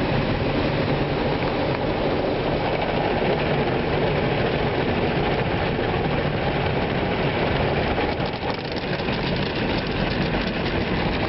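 Automatic car wash working over the car, heard from inside the closed cabin: a steady, loud rush of water spray and wash machinery on the body and windows.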